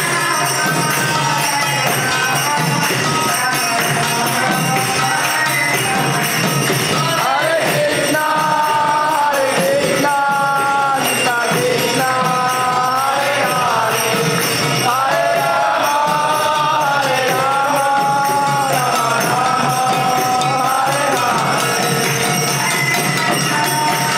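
Devotional kirtan: a woman's voice sings a melody into a microphone over mridanga drums and steadily jingling hand cymbals. The sung line is strongest in the middle of the stretch, with the cymbals ringing throughout.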